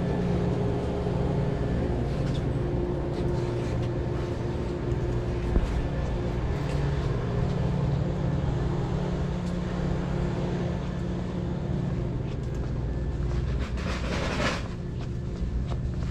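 Steady low hum of a shop interior, with scattered light clicks and a short rustle near the end.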